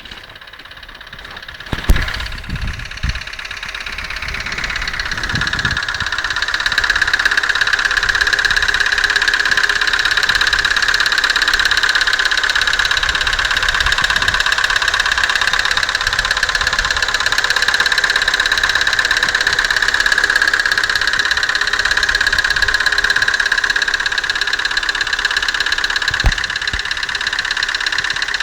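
Opel Astra G's Z16SE 1.6-litre petrol engine running at idle with a fast, even knocking, the engine knock the owner wants to cure. The sound grows louder over the first few seconds, then holds steady, with a couple of sharp thumps, one near the start and one near the end.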